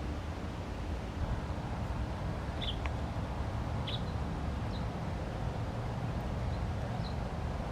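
Steady low outdoor background rumble with a few short, high bird chirps: two close together about three and four seconds in, a fainter one soon after, and another near the end.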